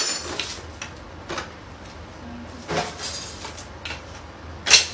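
Items being rummaged through and handled over a plastic bag: rustling with a few short knocks and clatters, the sharpest near the end.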